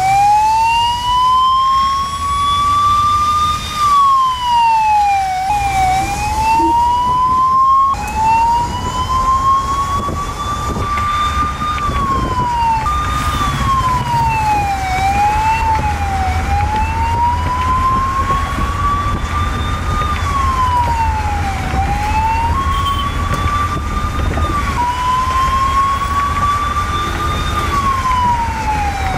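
Emergency-vehicle siren wailing: a tone that rises slowly and then drops quickly, repeating about every four seconds, over low traffic and engine rumble. The wail breaks off and restarts abruptly a few times.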